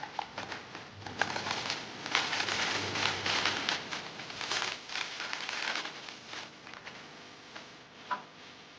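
Blind-box packaging crinkling and crackling as it is handled and opened by hand, busiest in the first six seconds, then one sharp click near the end.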